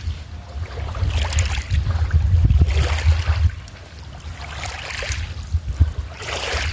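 Wind buffeting the phone's microphone: an uneven low rumble that swells and fades, strongest around the middle, with a faint hiss over it.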